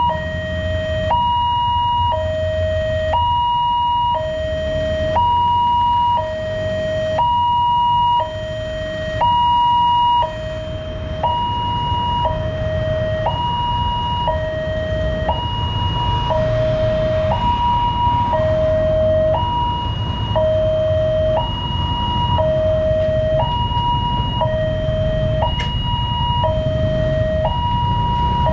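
Railway level-crossing warning alarm sounding with the barrier down, signalling an approaching train: a two-tone hi-lo signal that switches between a lower and a higher steady tone about once a second.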